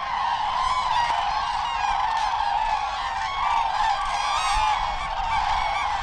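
A large flock of common cranes (Grus grus) calling together: a dense, continuous chorus of many overlapping trumpeting calls.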